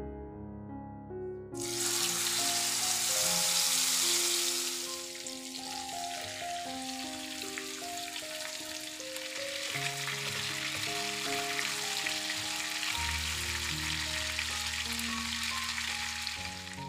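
Marinated chicken leg quarters sizzling as they fry in shallow oil in a non-stick pan. The sizzle starts suddenly about a second and a half in and is loudest for the next few seconds, then settles to a steady frying sizzle. Soft piano music plays underneath.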